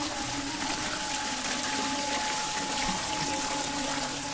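Water falling from several spouts of a concrete cascade and splashing into a pool, a steady rush, with a faint steady hum underneath.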